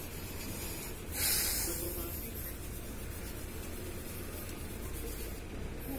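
Fingers rubbing Autosol polish into a clear plastic cover, a dry rubbing hiss that is loudest about a second in, over a steady low rumble.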